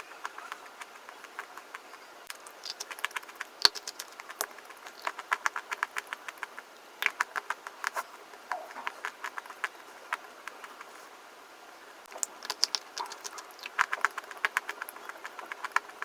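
Fast, crisp crunching: quick runs of sharp cracking clicks in bursts of a second or two, with a brief pause about two-thirds of the way through.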